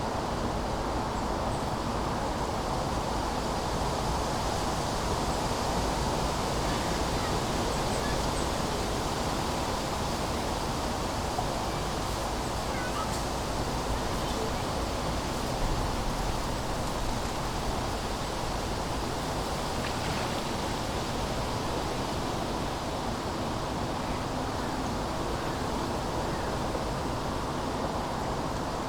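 Steady autumn wind, an even rushing hiss, blended with a low, constant hum of distant city traffic.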